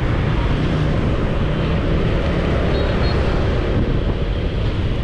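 Steady wind rumble on the microphone and road noise from a moving motorbike.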